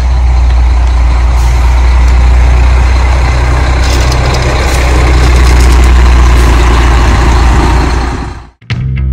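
Large motorhome engine idling with a steady low rumble. It fades out near the end, and music begins just before the end.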